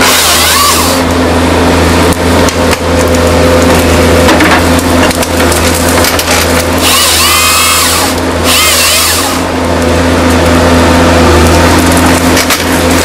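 Forestry harvester's diesel engine running steadily under load, with the Log Max harvester head's chainsaw bar cutting through small tree stems in three short bursts of sawing, one at the start and two between about seven and nine and a half seconds in.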